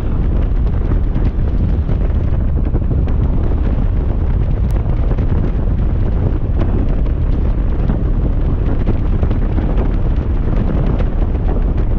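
Wind buffeting the microphone of a motorcycle being ridden: a loud, steady low rumble with no break.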